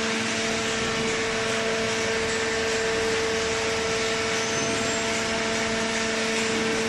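Hydraulic cardboard baler running: a steady machine hum with two held tones over a dense, even mechanical noise.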